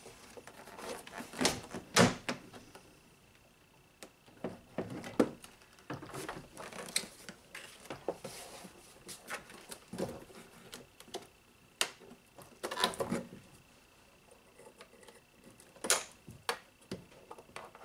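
Irregular plastic clicks, knocks and rustling as a 2013 Lincoln MKX rear door trim panel is lifted off the door and its electrical connectors are pinched and unplugged from behind it.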